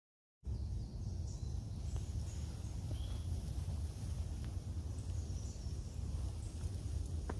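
Woodland outdoor ambience starting abruptly about half a second in: a steady low rumble with faint, scattered high bird chirps.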